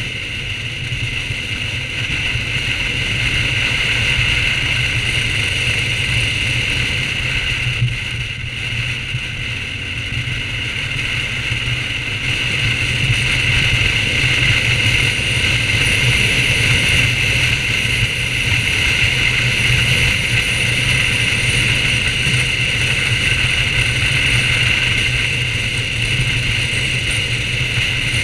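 BMW R1200GS boxer-twin engine running at a steady road speed, mixed with wind and road noise, heard from on the moving motorcycle. The level eases a little about eight seconds in and builds again a few seconds later.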